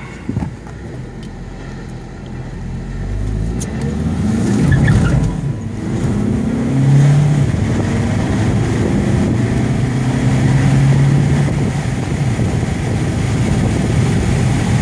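Car engine and road noise heard from inside the cabin as the car pulls away and accelerates. The engine pitch climbs, drops at a gear change about five seconds in, climbs again, then settles into a steady cruise with tyre noise.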